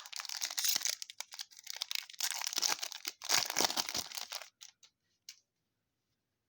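Crinkling and tearing of a trading-card pack wrapper being handled and torn open. The crackling goes on densely and cuts off about four and a half seconds in, followed by a couple of light clicks.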